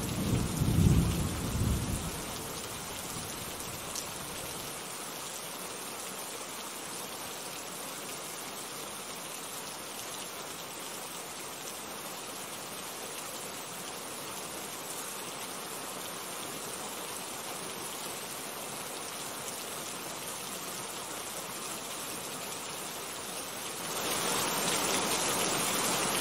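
Steady rain falling, with a rumble of thunder dying away in the first two seconds; near the end the rain turns heavier and louder.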